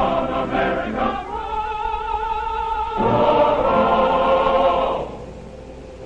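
Male choir singing a song's closing phrase, ending on long held chords that change once and die away about five seconds in.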